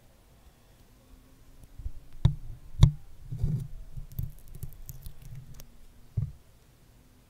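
Stickers being pressed onto and peeled off a microphone right at its capsule. About two seconds in come two sharp taps, then a stretch of sticky crackling, then a thump near the end.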